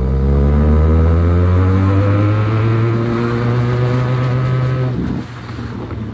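QJMotor SRK 400 motorcycle's exhaust note under acceleration, its pitch climbing steadily, then falling away and quietening about five seconds in as the revs drop.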